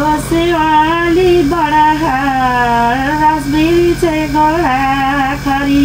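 A woman singing a Nepali devotional verse to Krishna, unaccompanied, in long held notes that glide up and down.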